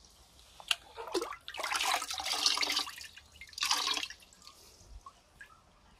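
Liquid microbial culture (IMO) being scooped with a plastic cup and poured into a part-filled plastic drum, splashing and gurgling: a longer pour about a second and a half in and a shorter one near the four-second mark, with a couple of light plastic knocks before them.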